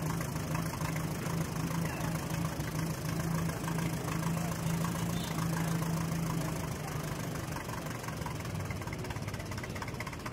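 Small vintage farm tractor's engine running slowly at low throttle, a steady low drone that gets a little quieter after about seven seconds.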